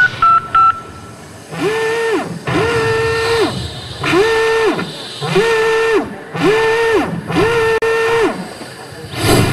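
Dance-show soundtrack: a few short high electronic beeps, then a pitched synth tone that slides up, holds and drops away, repeated six times about a second and a half apart over a low pulsing backing.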